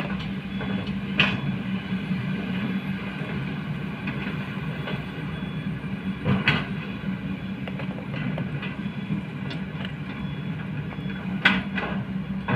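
Kobelco hydraulic excavators' diesel engines running steadily as they dig, with three sharp metallic clanks of the digging gear about a second, six and a half and eleven and a half seconds in.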